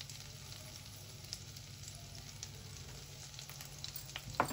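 Chopped garlic sizzling gently in butter in a frying pan, a steady soft hiss with small scattered crackles. A couple of louder clicks come near the end.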